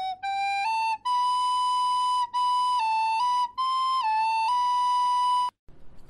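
A solo flute playing a short slow melody of held notes that climbs in steps, ending on a long held note that cuts off suddenly.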